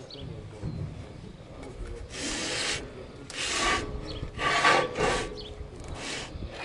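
Cloth rag rubbed hard around the metal hub of a combine header auger's overrunning clutch, wiping it clean: four or five scrubbing strokes of about half a second each, starting about two seconds in.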